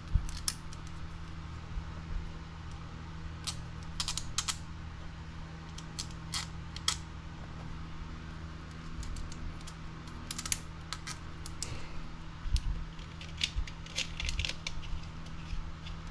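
Light, scattered clicks and taps of a plastic chassis brace and small screws being handled and fitted by hand on an RC buggy chassis, over a steady low hum.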